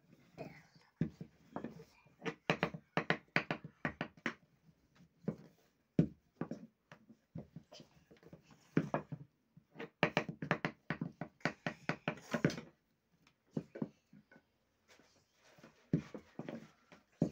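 Wooden rolling pin knocking and rolling on a wooden board as chapati dough is rolled out: quick, irregular clatter in two long runs, with scattered knocks near the end.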